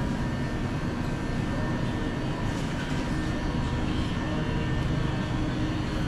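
Steady supermarket background drone: a low rumble and hum with faint steady whining tones from the store's refrigeration and air handling.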